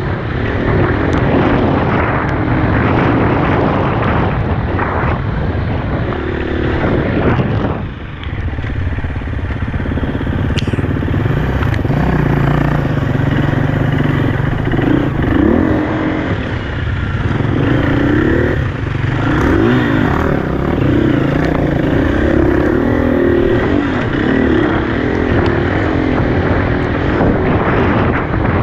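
Dirt bike engine under way, its pitch rising and falling over and over as the throttle opens and closes, with a brief let-off about eight seconds in.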